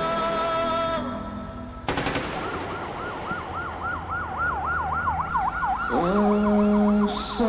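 Emergency-vehicle siren yelping, its pitch sweeping up and down rapidly about three times a second, just after a single sharp crack. Music chords fade out before the crack and come back in beneath the siren near the end.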